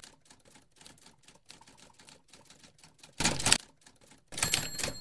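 Typewriter sound effect: a run of quick, irregular key clacks, a louder clatter about three seconds in, then a loud burst near the end with a high ringing tone through it.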